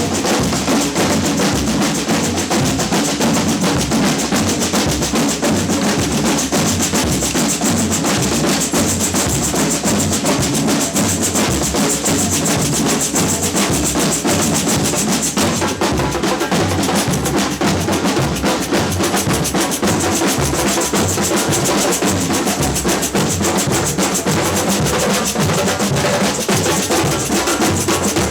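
Samba percussion band playing a loud, steady drum groove, with bass drums pulsing underneath and snare drums driving the rhythm.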